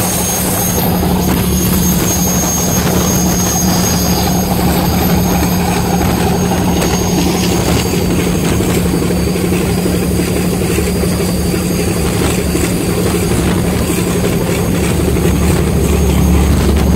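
Unsilenced engines of a motor torpedo boat running flat out at high speed: a loud, steady drone with a constant low hum, over the rush of the wake and spray.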